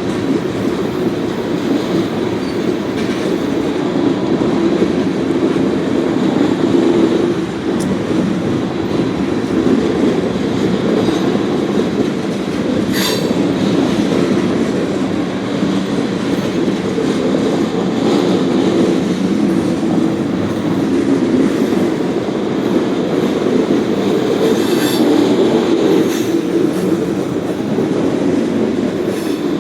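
Freight train of ethanol tank cars rolling past: a steady rumble of steel wheels on rail, with a few sharp clicks from the wheels, one near the middle and two near the end.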